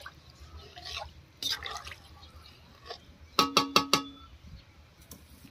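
Metal utensil swishing through rice and water in an aluminium karahi. About three and a half seconds in, metal strikes metal four times in quick succession, each strike ringing briefly.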